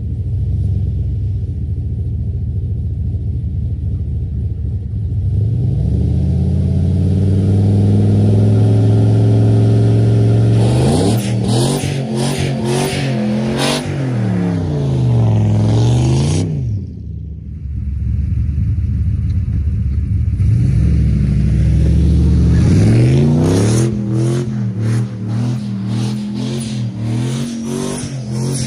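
Turbocharged 6.2 LS V8 of a Chevrolet Silverado crew cab revving hard while doing donuts in snow. The engine pitch climbs and falls over and over as the wheels break loose. It drops off briefly a little past halfway, then winds up again.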